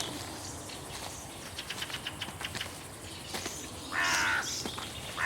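A crow cawing twice near the end, each caw harsh and about half a second long, over faint outdoor ambience with a few light ticks.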